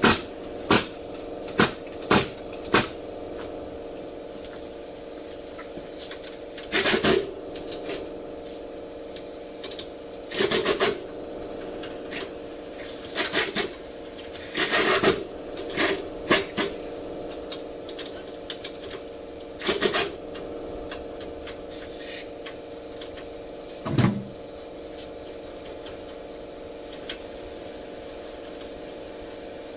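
Pneumatic air wrench run in about a dozen short bursts on the wheel hub nuts, each lasting half a second to a second, over a steady shop hum.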